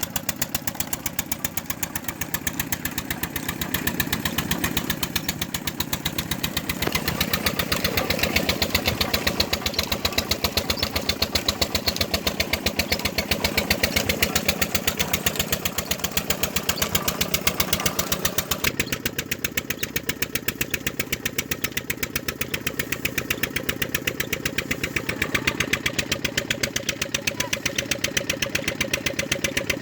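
Engine running steadily with a fast, regular beat, as at a jaggery works where an engine drives the sugarcane crusher.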